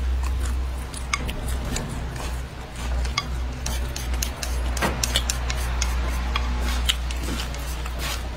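Close-up eating sounds: chewing and lip smacks, with many short clicks of wooden chopsticks against a plate, over a steady low hum.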